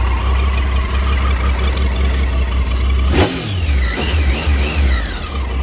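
2016 Triumph Tiger XR motorcycle's three-cylinder engine running steadily, then revved: a sharp rise in pitch about three seconds in, followed by a few smaller rises and falls.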